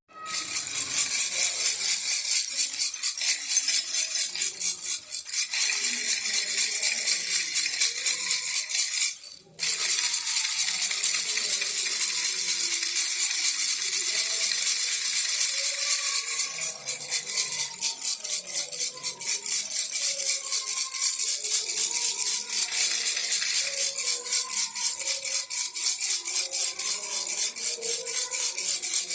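Baby rattle shaken continuously in a fast, even rattle, with a brief pause about nine and a half seconds in.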